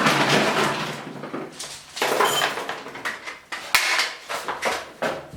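Irregular clattering and knocking, like objects being handled and moved about, in several loud bursts with a sharp click a little under four seconds in.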